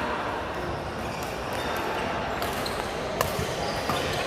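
Badminton rackets striking a shuttlecock during a rally: two sharp hits about three and four seconds in, over the steady background noise of a large hall.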